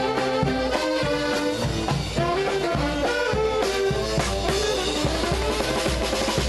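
Band music with many held pitched notes over a regular beat.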